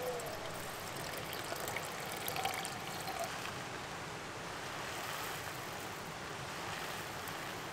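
Creek water running steadily over rocks, with a few light clicks about two seconds in.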